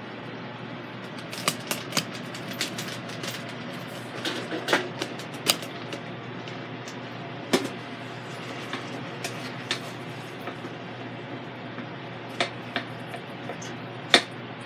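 A utensil chopping and scraping raw ground beef in a stainless steel Instant Pot inner pot, giving irregular clicks and knocks against the metal over a steady low hum.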